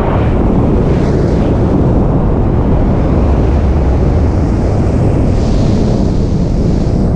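Loud, steady rush of freefall wind buffeting the camera's microphone during a wingsuit flight.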